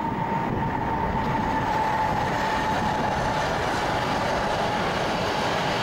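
Passenger train running past on the rails, a steady loud rumble and rush of wheels with a high steady whine over it.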